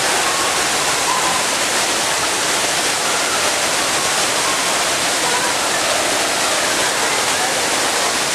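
Steady rushing of a waterfall inside an indoor rainforest exhibit, with faint voices of visitors underneath.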